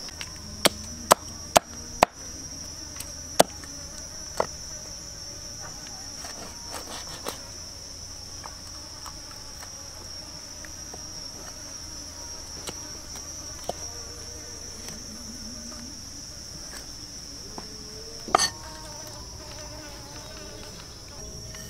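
Steady, high-pitched insect chorus, with a few sharp knocks, several in the first few seconds and another near the end.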